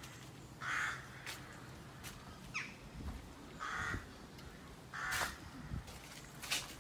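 A crow cawing three times, harsh and short: about a second in, near four seconds, and about five seconds in.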